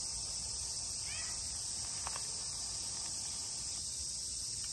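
Steady, high-pitched chirring of a summer insect chorus, unbroken and even.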